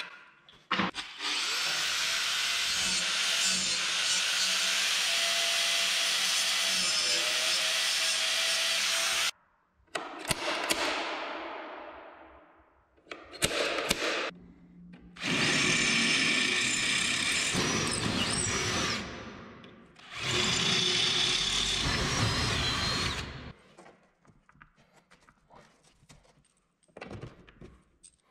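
A power tool running in several long bursts of a few seconds each, with short pauses between; one of them winds down slowly as it stops. Quieter handling sounds follow near the end.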